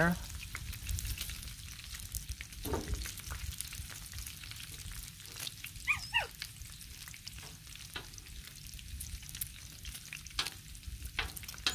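Thick-cut bacon sizzling and popping on a Blackstone flat-top griddle, with the occasional click of metal tongs as the strips are moved. About halfway through, a dog gives a brief whine.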